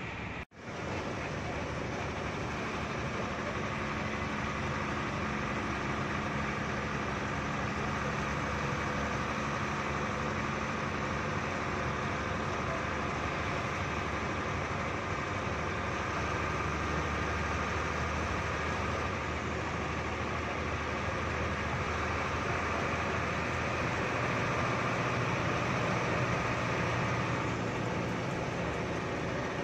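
Hino AK3HR Ranger bus's engine running steadily under way, heard from inside the cab together with constant road and cabin noise. The sound drops out briefly about half a second in.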